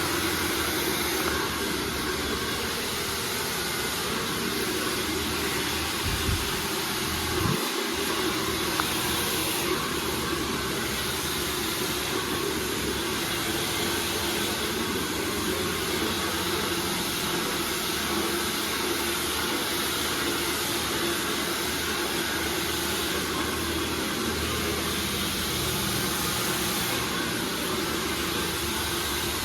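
Hand-held hair dryer running steadily, a continuous rush of blown air with a faint hum under it, used for blow-drying hair straight. Two brief low bumps about six and seven and a half seconds in.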